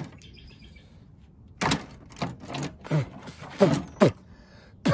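Chainsaw chain, bar and tools handled on a pickup's tailgate while a thrown chain is being refitted. About half a dozen short clanks and rattles of the metal links start about a second and a half in.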